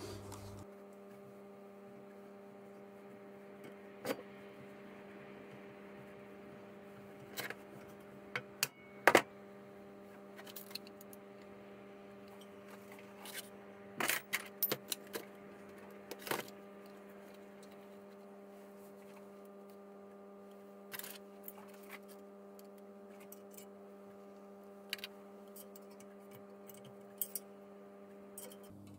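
Hand tools clicking and clinking against a BSA B31 motorcycle cylinder head as its rocker gear is taken apart. The clicks come at irregular moments, with the loudest sharp knock about nine seconds in and a quick cluster around fourteen seconds. A steady electrical hum runs underneath.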